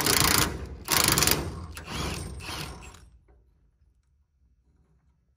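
Cordless power tool running in a few short bursts on a truck's hood pivot pin, working the pin and its worn bushing loose. The bursts die away about three seconds in.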